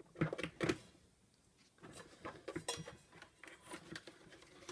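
Parts of a vacuum cleaner motor unit being handled and fitted together by hand: a few knocks and clicks in the first second, then a short lull and scattered light clicks and rubbing.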